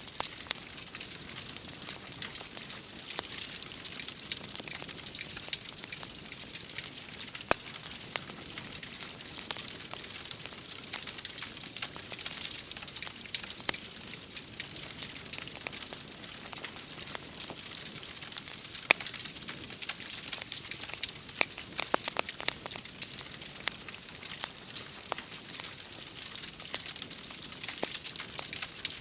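Wood fire crackling in a fireplace, with sharp pops scattered throughout, over a steady hiss of falling rain.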